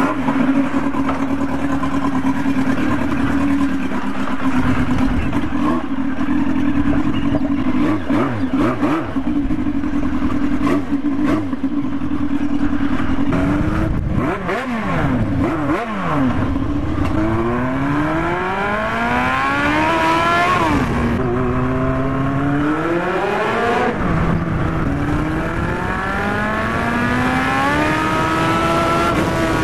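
Yamaha FZR1000 inline-four motorcycle engine running loud on an open exhaust with no silencer. The note holds steady for about the first half. The bike then pulls away and accelerates, the pitch climbing in several rising sweeps, each broken by a drop at a gear change.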